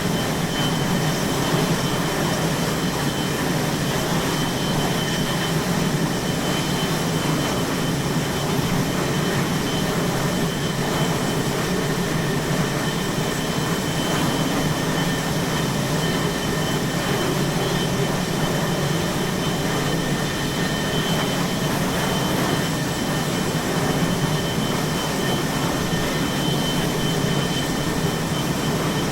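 Aircraft carrier flight deck ambience: a steady, unbroken roar of jet engines running, with a constant high whine over it.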